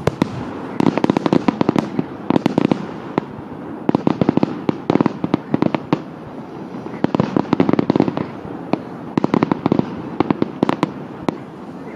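Fireworks display: aerial shells bursting with clusters of rapid pops and crackles, coming in waves every second or two.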